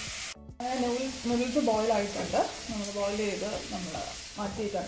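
Sliced onions sizzling in a steel kadai as a wooden spatula stirs them. After a brief dropout about half a second in, a person's voice talks over the continuing sizzle.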